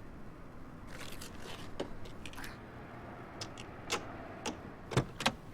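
Scattered clicks, knocks and scrapes of something being handled, in small clusters, the loudest a sharp knock about five seconds in.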